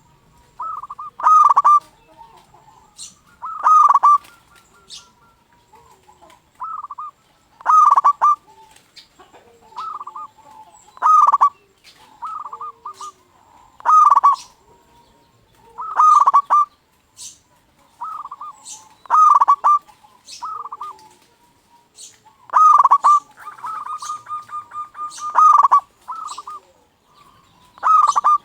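Zebra dove (perkutut) singing its cooing song over and over, loud phrases coming every two to three seconds.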